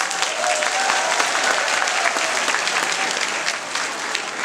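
An audience applauding, steady dense clapping.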